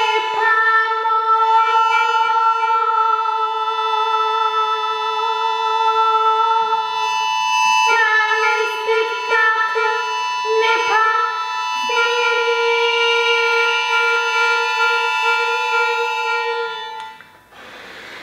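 Button accordion playing long held chords, moving to new chords about eight and eleven seconds in, then stopping a second before the end, when a soft rushing noise takes over.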